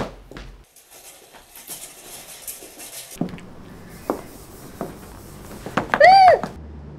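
A woman's brief cry as a cloth is clamped over her mouth from behind, about six seconds in, rising and falling in pitch. Before it comes a faint hiss for a few seconds and a few soft knocks.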